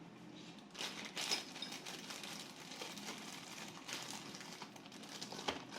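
Faint rustling and scattered light clicks of small parts and packaging being handled.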